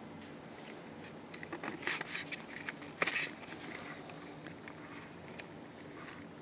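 Scraping and rustling of close movement, like steps scuffing a gritty, debris-strewn floor, with a sharp click about three seconds in, over a steady low hum.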